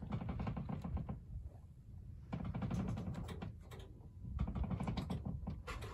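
Wind buffeting the microphone in gusts, a low rumbling that surges and drops, with short knock-like bumps.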